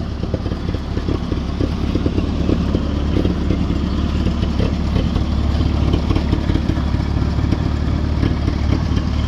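Towmotor forklift's Continental four-cylinder carbureted gas engine running steadily as the forklift is driven, with a light clatter over the engine note.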